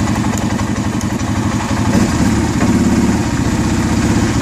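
A 2008 Arctic Cat 650 H1 ATV's single-cylinder four-stroke engine idling with a steady pulsing beat. It grows a little louder about halfway through.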